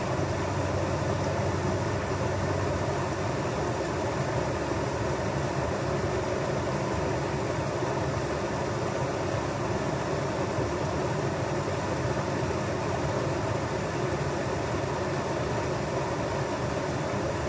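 Small creek waterfall rushing steadily, an even, unbroken water noise.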